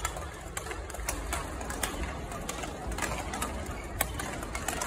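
Badminton rackets hitting shuttlecocks on several courts at once: sharp, irregular pops, several a second, over the steady low hum of a large sports hall.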